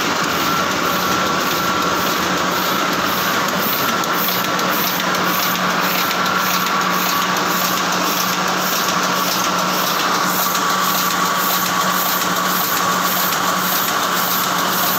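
Heidelberg GTO offset printing press running: a steady mechanical clatter with a constant whine and a regular, repeating cycle beat.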